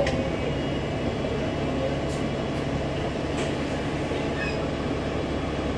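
Alexander Dennis Enviro200 MMC bus heard from inside the passenger saloon: a steady drone of the diesel engine and running gear, with a low steady hum setting in about half a second in.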